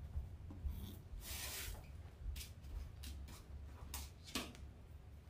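Poly burlap deco mesh being handled as ruffles are made and zip-tied onto a wreath board: a longer rustling rub about a second in, then a few short scratchy strokes.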